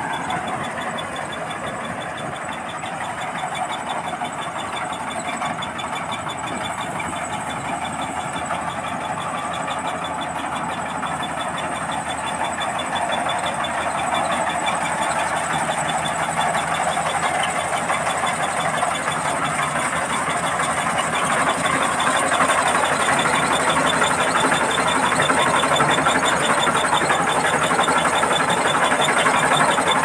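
Rice combine harvester's engine and working machinery running steadily as it cuts through standing rice, with a thin steady high whine over it. It grows louder toward the end as the machine comes close.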